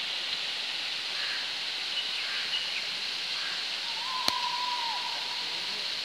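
Steady rush of running water, small falls spilling into a rocky pool, with a single sharp click about four seconds in.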